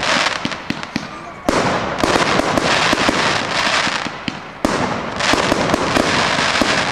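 Fireworks display: dense crackling and popping of bursting shells. A loud new volley comes in suddenly about a second and a half in and again near five seconds, each one dying away into crackle.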